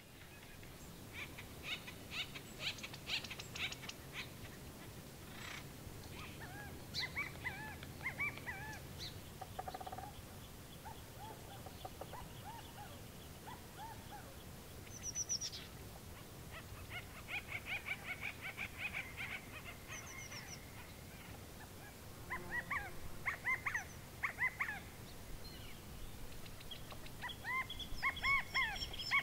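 Outdoor ambience with short, high animal calls that come in quick clusters several times, over a faint steady background.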